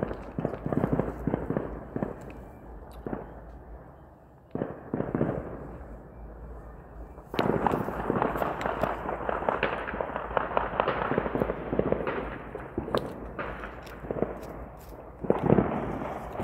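Firecrackers and fireworks going off in rapid crackling runs of pops. The longest and densest run lasts from about a third of the way in to about three quarters, with shorter bursts before and after. A steady low rumble underlies them.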